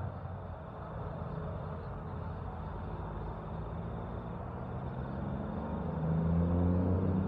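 Heavy diesel truck engine running on the highway, a low rumble that swells louder about six seconds in.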